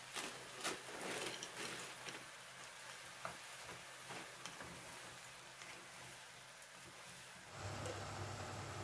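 Sliced onion, bell peppers, corn and mushrooms sizzling faintly in oil in a frying pan, with small scattered crackles. A steady low hum comes in near the end.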